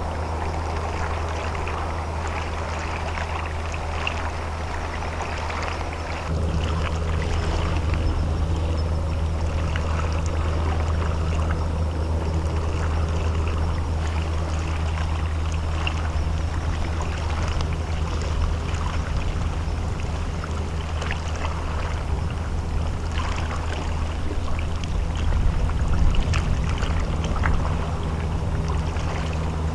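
Engine of the diving tender YDT01 running steadily as a low, even hum, which gets louder about six seconds in, with faint water noise.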